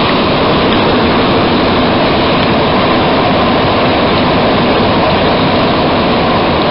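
Bombardier MR-73 Montreal Metro train running through a tunnel on its rubber tyres, heard from inside the car: a loud, steady running noise that holds even throughout.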